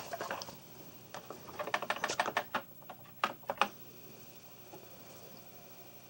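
Keystrokes on a Commodore 64 keyboard: a few key presses at the start, then a quick run of about a dozen presses between one and four seconds in, typing in the command to load the program.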